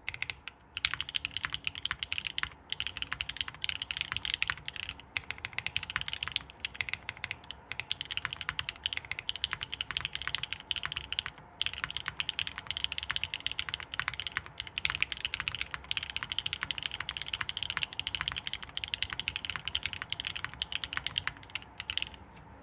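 Continuous fast typing on a custom 60% mechanical keyboard: NK Cream Dream linear switches, lubed with 205g0, on an aluminium plate in a gasket mount with GMK keycaps. The clicks come in quick runs with a few brief pauses.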